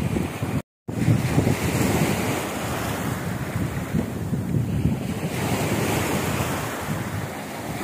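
Small sea waves breaking and washing up a sandy shore, with wind buffeting the microphone. The sound drops out completely for a moment just under a second in.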